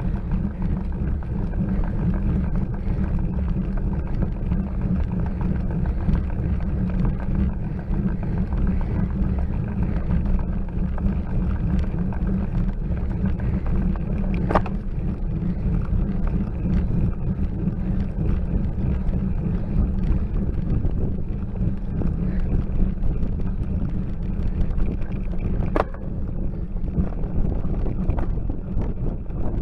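Steady low rumble of wind and road vibration on a handlebar-mounted bike camera's microphone as a bicycle climbs a steep hill slowly. A sharp click comes twice, about halfway through and near the end.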